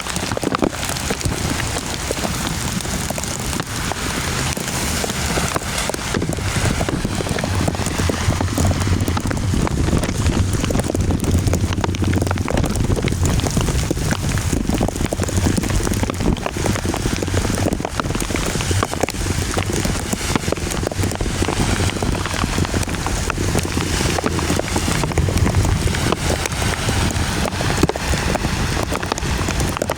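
Heavy rain pouring down, a dense steady patter of many drops hitting close to the microphone. A low steady hum sits underneath from a few seconds in.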